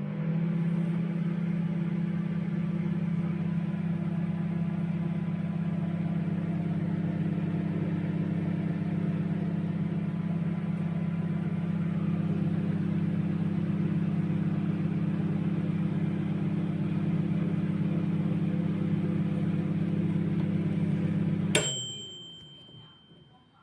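Sharp R20DKM 800 W solo microwave oven running with a steady low hum. Near the end the hum cuts off suddenly with a click and a single ringing ding that fades out, the sign that the timer has run down and heating has ended.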